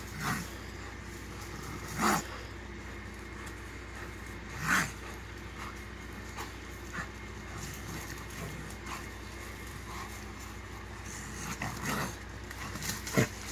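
A Blue Lacy dog and a raccoon in a fight, giving short harsh calls: three loud ones in the first five seconds, about two seconds apart, and another sharp one near the end, with fainter scuffling sounds between.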